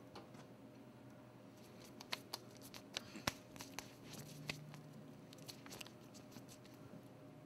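Faint scattered small clicks and rustles, thickest in the middle, over a low steady hum in a small, quiet room.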